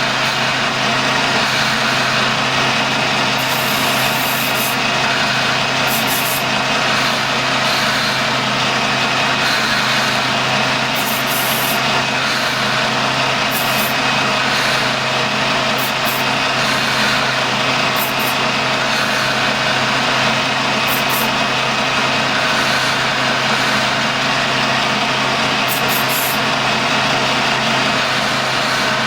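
Colchester lathe running steadily with a constant hum while turning a metal sphere, with short high hissing bursts every few seconds.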